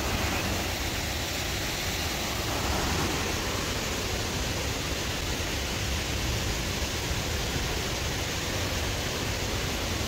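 Waterfall: falling water making a steady, unbroken rushing noise.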